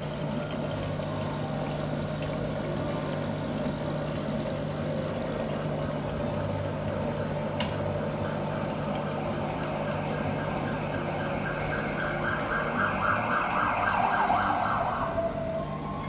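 Bezzera BZ10 espresso machine's vibratory pump humming steadily while a shot runs into a steel cup. From about halfway through, an emergency-vehicle siren from the street wails over it, growing louder and then stopping shortly before the end.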